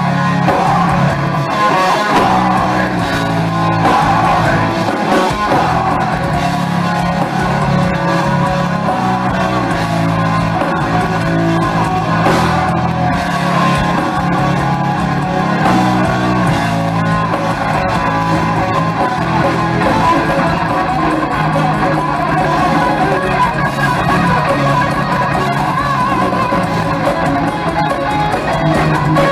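Heavy metal band playing live in a large room: distorted electric guitars, bass and drums with sung vocals, loud and unbroken.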